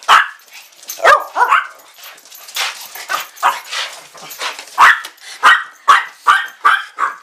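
American Eskimo dogs barking in short, sharp, high barks: a few near the start, then a quick run of about two barks a second near the end.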